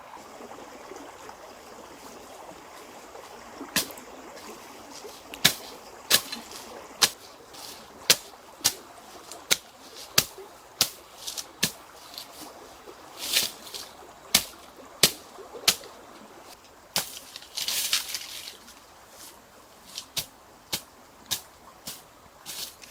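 A series of sharp knocks, about one or two a second, over a steady trickle of running water, with two brief louder rustling bursts in the middle.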